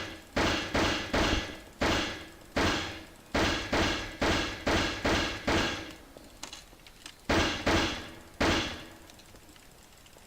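A series of about fifteen sharp bangs at an uneven pace, each ringing out briefly, stopping for the last couple of seconds.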